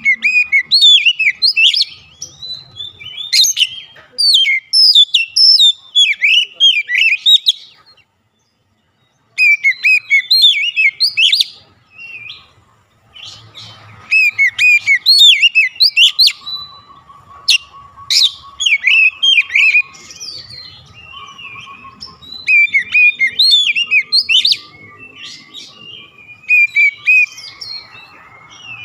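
Oriental magpie-robin (kacer) singing loudly in full song: rapid, varied whistled phrases and chirps, broken off by a short silence about eight seconds in.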